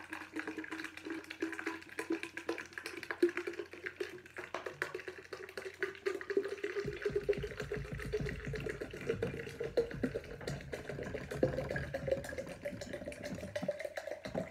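Water pouring from a plastic bottle into a tall plastic tube, with a tone that rises slowly in pitch as the tube fills.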